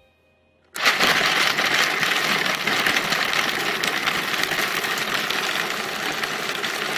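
Food processor switched on about a second in, its blade running steadily and grinding raw almonds and medjool dates into a crumbly crust mixture.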